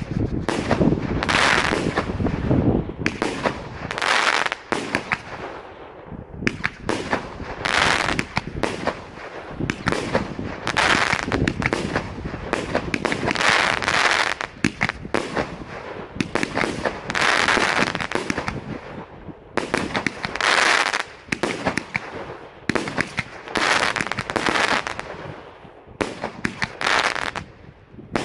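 Dragon DSO DR-500 78-shot fireworks cake firing: shots launching and bursting in rapid succession, with dense crackling, swelling in loud waves about every three seconds.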